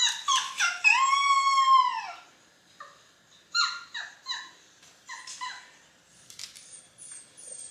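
A canine yipping in short falling cries, with one long arching howl about a second in, then fainter yips. A few faint high chirps come near the end.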